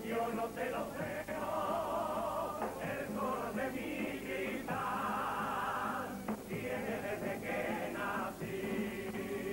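A Cádiz carnival group's male chorus singing a song together, many voices at once, with instrumental backing.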